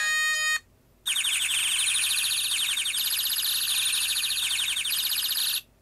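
Built-in ringtones of a cheap iPhone 2G clone phone playing from its loudspeaker. A melodic ringtone stops about half a second in. After a brief gap the next ringtone starts: a fast, high, alarm-like electronic warble of rapid repeating pulses, whose pattern shifts about halfway through. It cuts off just before the end.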